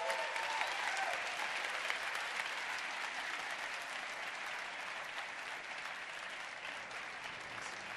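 Large seated audience applauding, loudest at the start and slowly fading.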